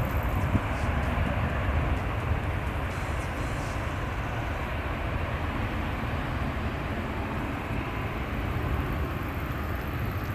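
Emirates Boeing 777 jet airliner noise: a steady, dense low rumble and rush that keeps an even level throughout.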